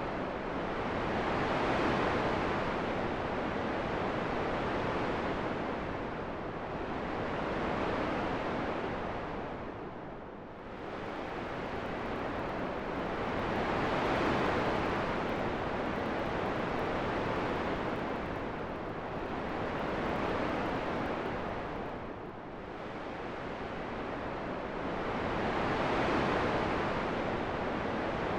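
Steady rushing wind noise that swells and fades in slow, even waves, rising to a peak about every six seconds and dipping deeper about every twelve.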